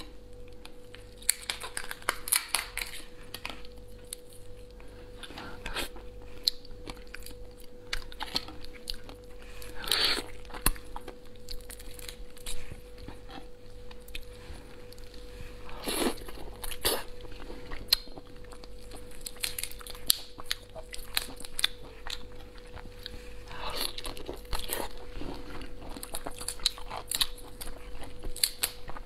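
Fingers peeling the shell off a large prawn close to a clip-on microphone: irregular crackling and snapping of the shell, with a few sharper cracks. A faint steady hum runs underneath.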